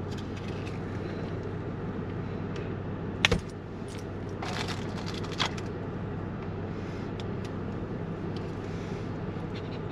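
A tag being pulled off a new squeaky dog toy: a sharp snap about three seconds in, then a second or so of handling and crinkling, over a steady low hum.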